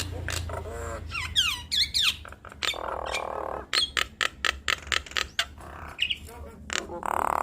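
A pair of hill mynas (jalak nias) calling together: a rapid string of sharp clicks and squawks, mixed with gliding whistles about a second and a half in and harsh rasping calls around three seconds and near the end.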